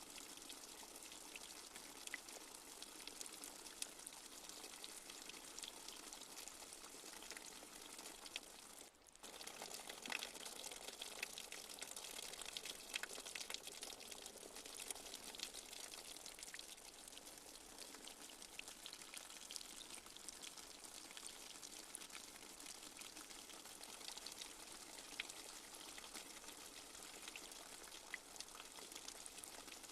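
Light rain falling: a steady, soft hiss with scattered ticks of drops. It cuts out for a moment about nine seconds in, then comes back a little louder.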